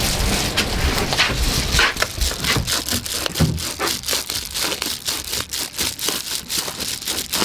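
Reflective foil bubble-wrap insulation crinkling as it is handled and cut with scissors: a dense, continuous stream of small crackles.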